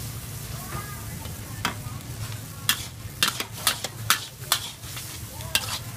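Stir-frying in a wok: a steady sizzle, with a metal ladle and spatula scraping and clanking against the wok about eight times, mostly in the second half.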